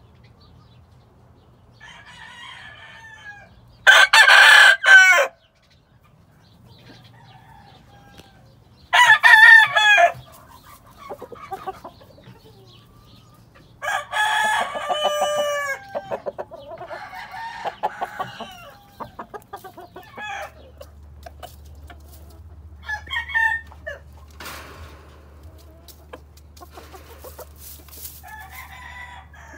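Game roosters crowing repeatedly: three loud crows about five seconds apart, with fainter crows and short calls in between and after.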